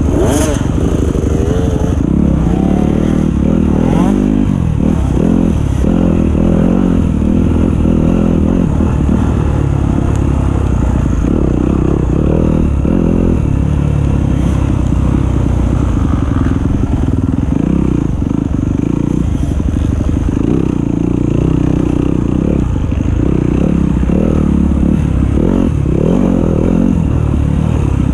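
Yamaha dirt bike engine running hard while being ridden, its revs rising and falling as the rider works the throttle, heard close up from a camera mounted on the bike.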